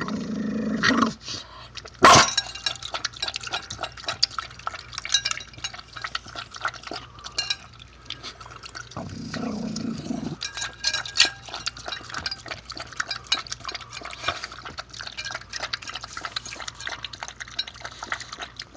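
A dog lapping liquid from a ceramic dish: a fast run of wet tongue clicks and slurps, with a sharp knock about two seconds in. A brief low pitched sound comes about nine seconds in.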